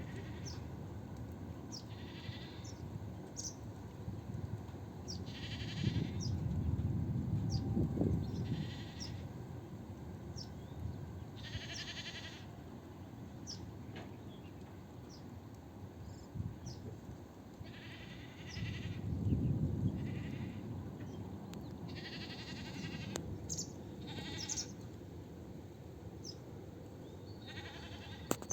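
Repeated animal calls, each lasting about half a second to a second with a fast flutter, about ten in all. Short high chirps fall between them, over a low rumble that swells twice.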